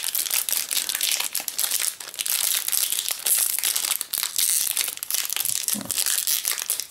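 Foil wrapper of a Magic: The Gathering booster pack crinkling continuously as it is handled and worked open, with many quick irregular crackles.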